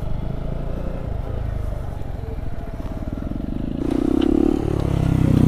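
Kawasaki Z125 motorcycle's single-cylinder engine idling steadily, being let cool after full-throttle wheelie attempts. About four seconds in the engine sound becomes louder and deeper.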